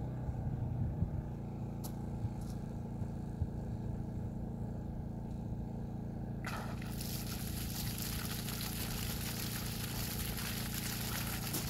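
Water bursts from a newly installed well pump's discharge hose about six and a half seconds in and keeps spraying with a steady hiss, over a low steady hum. This is the pump's first flow, flushing dirty water out of the well.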